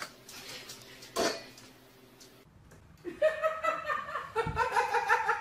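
A person laughing in quick repeated bursts, starting about three seconds in; earlier, a single sharp knock about a second in.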